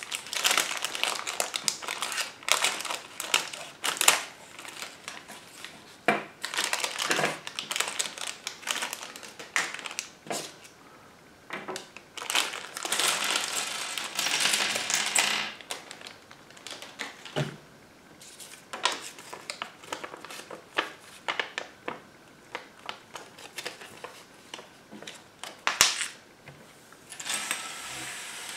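Clear plastic bag crinkling as scissors cut it open, then small plastic building bricks clicking and clattering against each other and the tabletop as they are tipped out and spread by hand. A longer stretch of bag rustling comes about halfway through.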